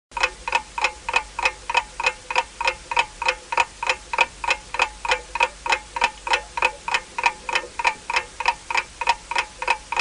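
Countdown clock-ticking sound effect: sharp, even ticks at about three a second, each with a short ringing tone.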